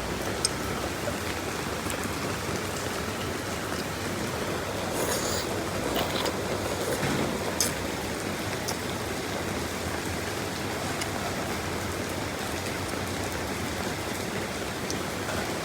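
Heavy rain falling steadily in a downpour, a constant hiss, with a couple of brief faint clicks.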